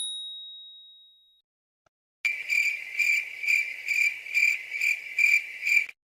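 A single high ding that rings out for about a second, then, after a short silence, a cricket sound effect: steady high chirping that pulses about twice a second for nearly four seconds and stops abruptly, the stock 'crickets' meme sound.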